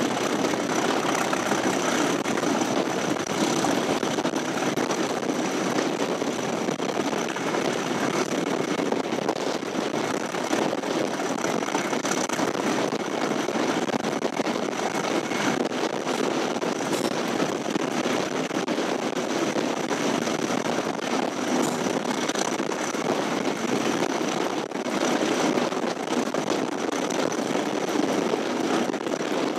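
Class 37 diesel locomotive D6700's English Electric V12 engine running steadily as it hauls a train, heard from the train close behind it together with the running noise of the moving train. A faint steady high whistle sits over the engine sound.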